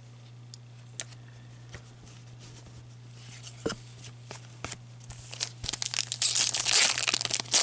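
Foil trading-card pack wrapper being torn open and crinkled, growing louder over the last two seconds, after a few light clicks of cards being handled.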